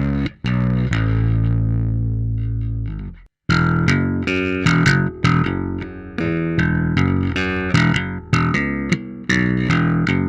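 Ibanez Jazz bass played through a Bass Amuser tube overdrive pedal into an Ampeg SVT amp profile. It holds one long note, cuts out briefly just over three seconds in, then plays a quick run of picked notes with bright attacks.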